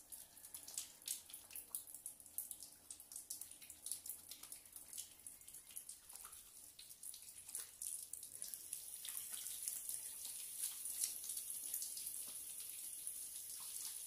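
Hands being washed under a wall tap: wet rubbing with scattered drips and splashes, then about eight seconds in the tap runs in a steady stream as the hands are rinsed.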